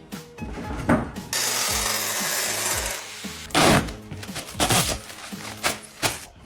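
A power tool cutting steadily for about two seconds, then several sharp knocks from hands-on workshop assembly, over quiet background music.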